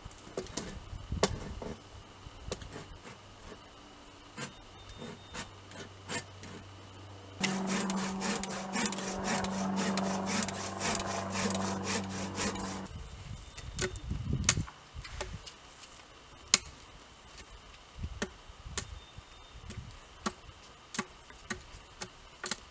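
Sawing a wooden pole by hand, then a cordless power tool running steadily into the wood for about five seconds, which is the loudest part. Scattered sharp knocks on the wood follow.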